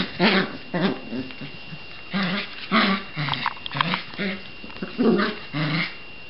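Sheltie puppy growling in play while tugging at a plush toy, a string of short growls one after another.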